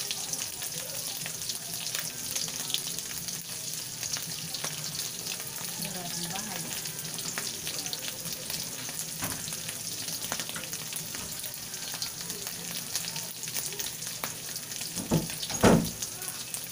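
Tuyo (small dried salted fish) frying in shallow oil in a steel wok: a steady sizzle and crackle of hot oil, with a metal ladle scraping the wok at first. Near the end come two knocks about half a second apart, the second louder.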